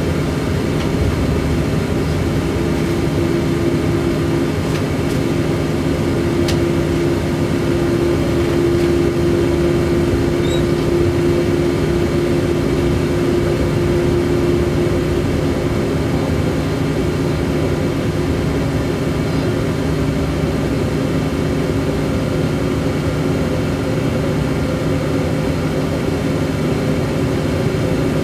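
Electric train running, heard from inside the driver's cab: a steady rumble with a hum of several steady tones. One higher tone grows stronger over the first seconds, then fades about halfway through.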